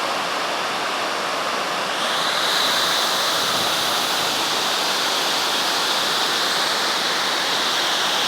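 Waterfall's water rushing and splashing steadily, a little louder from about two seconds in.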